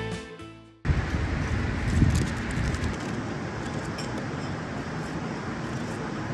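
A music track fades out, then a steady rushing outdoor noise takes over, with a few low rumbles in the first couple of seconds and faint clicks.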